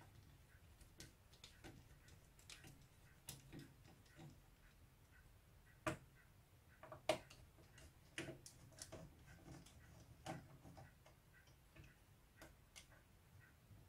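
Faint, irregular small clicks and ticks of a screwdriver turning out the screws that hold a VCR's control circuit board, metal on metal, with two sharper clicks about six and seven seconds in.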